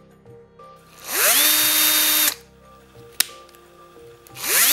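Bosch PSR 14.4 LI-2 cordless drill-driver running with no load: the motor spins up with a rising whine to a steady pitch, runs about a second and stops. There is a sharp click between the two runs, as the forward/reverse selector is switched, and then the drill spins up again near the end.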